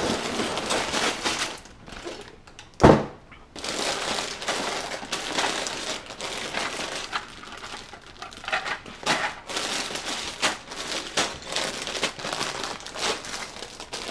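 Sealed plastic bags of LEGO pieces being handled and pulled out of a box: continuous crinkling with many small clicks, and one loud thump about three seconds in.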